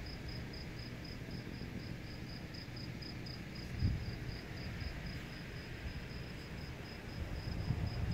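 A cricket chirping steadily, a high-pitched pulse repeating about four times a second, over a low fluctuating rumble that swells briefly about four seconds in.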